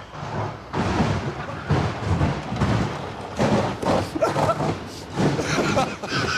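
Hard wheezing laughter: rapid gasping bursts a few tenths of a second apart, turning to higher-pitched squeals in the second half.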